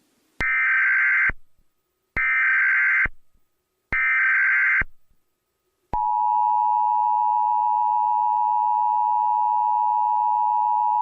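Emergency Alert System signal: three short screeching digital data bursts (the SAME header), each about a second long and evenly spaced. About six seconds in, the steady two-tone EAS attention signal starts and holds unchanged.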